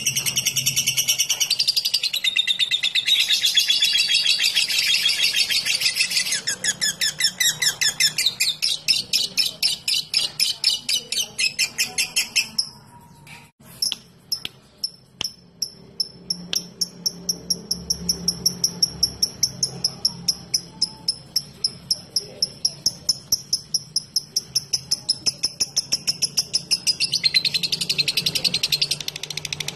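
Lovebird calling: a dense, shrill chatter, then long runs of sharp repeated chirps at about four a second, the rhythmic call keepers call 'ngetik' ('typing'). A short gap breaks it about halfway through, and the dense chatter returns near the end.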